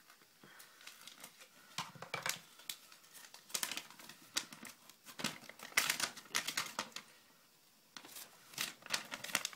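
Packaging being handled, crinkling and rustling in irregular bursts, with a brief lull about seven seconds in.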